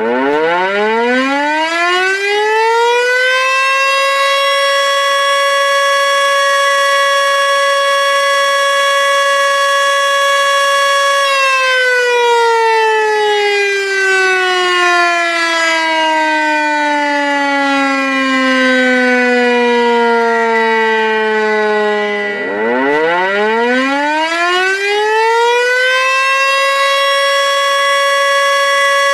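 Tornado warning siren rising in pitch to a steady wail, holding it, then sliding slowly down from about 11 seconds in. About 22 seconds in it rises again quickly and holds the steady wail.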